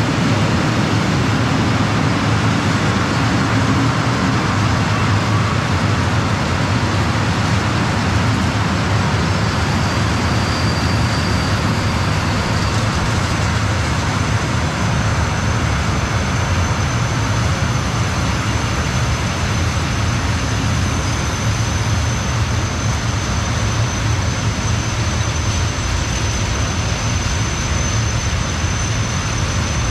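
Freight train of loaded tank wagons rolling past at steady speed: a loud, even rumble of wheels on rail. A thin high-pitched tone joins about halfway through and holds.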